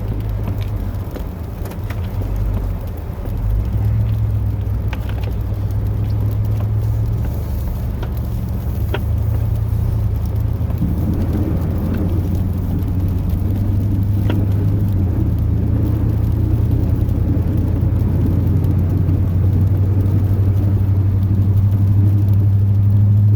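Chevrolet 8.1 L Vortec big-block V8 truck engine running steadily from inside the cab, a low drone that builds gradually louder, with a few faint clicks. The owner says the engine's exhaust manifolds are leaking.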